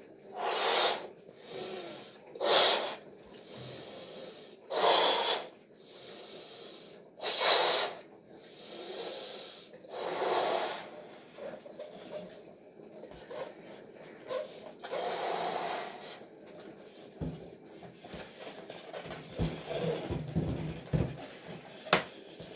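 A balloon being blown up by mouth: about six strong breaths pushed into it, a couple of seconds apart, each with a short pause to inhale. After the last breath come softer rubbery rustles as the neck of the balloon is tied, with a sharp click near the end.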